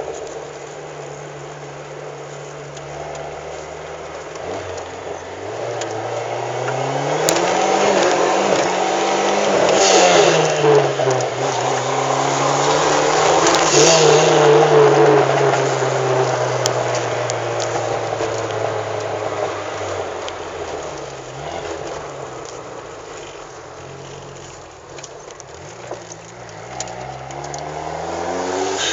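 Turbocharged Opel Corsa 1.8 engine accelerating hard, its pitch climbing twice through the revs and loudest in the middle, then falling back slowly as it eases off. It revs up again near the end.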